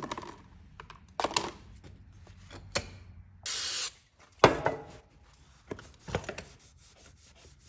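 Hand tools and small metal parts being handled: scattered clicks and knocks, with a short hiss about three and a half seconds in.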